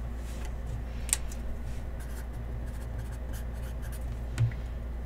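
Hands scratching and rustling on a tabletop, with a couple of sharper clicks, one about a second in and one near the end, over a steady low electrical hum.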